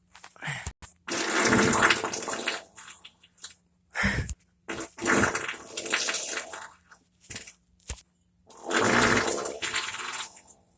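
A run of about six human farts cut one after another, mostly hissy rather than pitched. The longest come about a second in and near nine seconds, with shorter ones in between.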